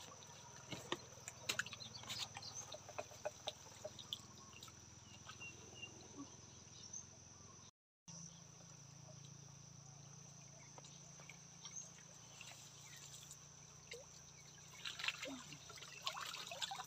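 Water dripping and trickling off a raised lift net back into the river, many small drips. The sound drops out briefly about halfway, and a thicker patter of drips and splashes comes near the end as the net is lifted again.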